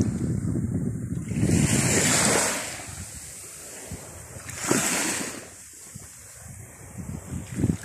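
Small waves washing onto a sandy shore, with two rushing swells of surf, about two seconds in and again near five seconds. Wind buffets the microphone, most strongly in the first couple of seconds.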